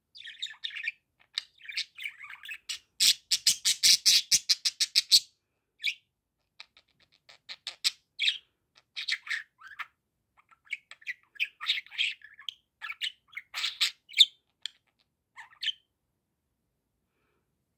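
Budgerigar chattering and chirping in short bursts, with a fast, loud run of evenly spaced sharp chirps about three seconds in. It stops a couple of seconds before the end.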